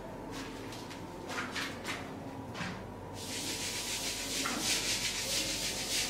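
Whiteboard eraser rubbing back and forth over the board, wiping off marker writing. A few faint strokes come first, then steady scrubbing from about three seconds in.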